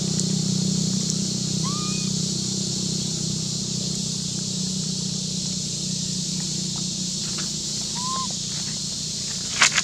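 Steady outdoor background of a low hum and a high hiss, with two short chirps that rise and fall away, about two seconds in and again near the end. A pair of sharp clicks comes just before the end.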